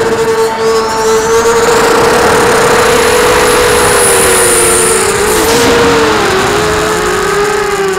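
FPV quadcopter's brushless motors and propellers whining, picked up by its onboard camera. The pitch holds steady, then dips and wavers about two-thirds of the way through as the throttle changes. A thin high whine climbs over the first few seconds.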